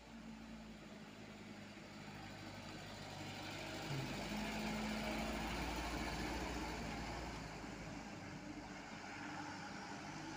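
Mitsubishi Fuso HD 125 PS dump truck's four-cylinder diesel engine running as the truck drives by: it grows louder, is loudest about four to seven seconds in as it passes close, then fades as the truck pulls away.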